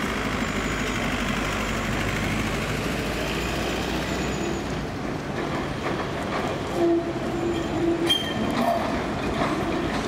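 Alstom Citadis 402 low-floor tram running towards the listener on street track: a steady rumble of wheels on rail and running gear. From about seven seconds in, a short steady tone and a few sharp clicks stand out as it draws close.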